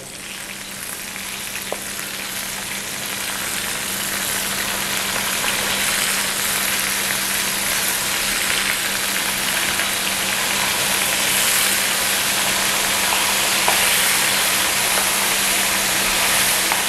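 Flour-coated squid rings deep-frying in hot oil: a steady sizzle that builds over the first few seconds as more pieces go into the pan, with a low steady hum underneath.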